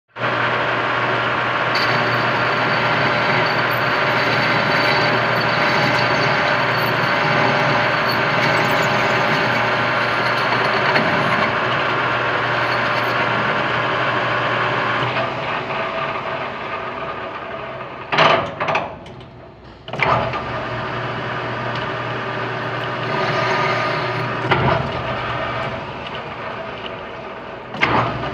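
Machinery running with a loud, steady mechanical drone that changes partway through. Near the end it briefly drops off between sharp knocks and clatters.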